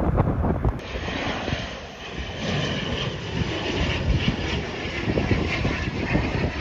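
Wind buffeting the microphone, then from about a second in the steady drone of an ATR 72 turboprop airliner's engines and propellers as it passes low on approach.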